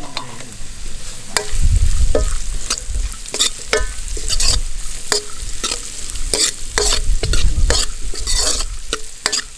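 Cashew nuts and raisins frying in hot ghee with a steady sizzle, stirred in the pan with frequent sharp clicks and scrapes.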